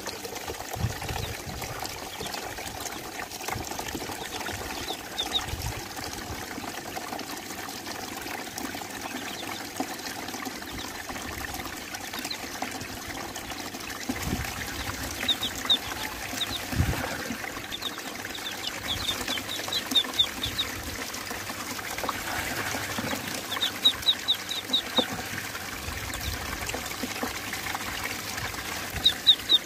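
Water swirling and trickling in a plastic tub, with ducklings swimming in it giving short runs of rapid high peeps several times.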